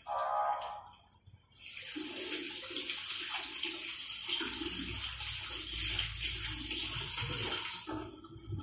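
Tap water running into a sink while hands are washed under it. The water comes on about a second and a half in and is shut off near the end.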